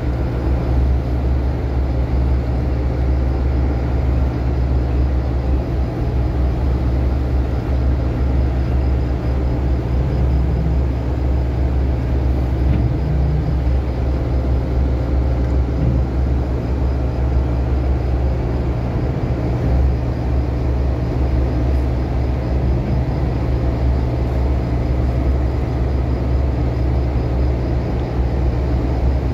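A towing tug's diesel engine running steadily, heard on deck as an even low drone with no change in speed.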